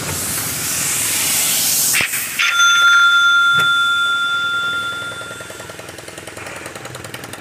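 Rush of wind and road noise through the open side of a moving electric auto-rickshaw. About two and a half seconds in, a bell rings once and dies away over the next couple of seconds.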